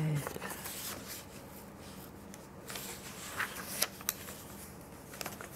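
Glossy magazine pages being handled and turned, a soft paper rustle with a few short crisp crackles about three to four seconds in.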